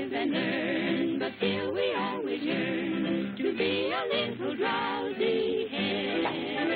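Singing with a wide vibrato over cartoon score music, in short phrases. It has the dull, narrow sound of an old film soundtrack.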